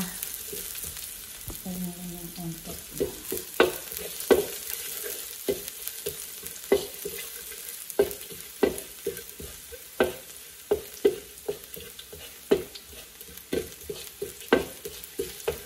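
Garlic and dried chillies sizzling in a little oil in a wok while being stirred, with a utensil knocking and scraping against the pan about once or twice a second.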